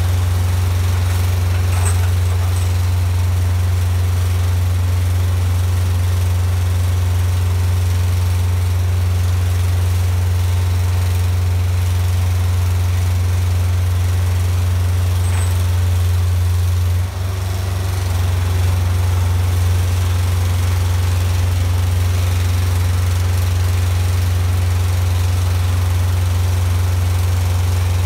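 Side lifter's engine running steadily at a constant speed while the lifting arm works, with a brief dip in level about two-thirds of the way through.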